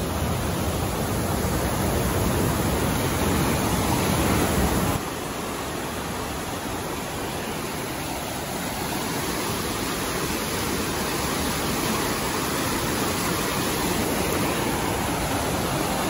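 Steady rushing of a waterfall and its river rapids running in flood, the water very strong. About five seconds in the sound drops suddenly and loses its deeper part, then slowly grows louder again.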